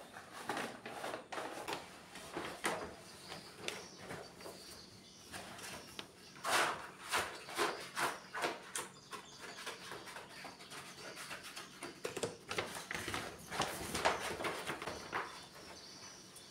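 Irregular rustling and crinkling of a self-adhesive paper sheet being handled, peeled and pressed onto a surface, coming in louder bunches a few seconds in and again past the middle.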